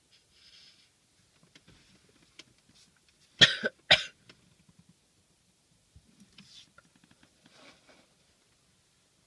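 A person sneezing twice in quick succession, the two sharp sneezes about half a second apart a little before the middle. Faint breaths come before and after.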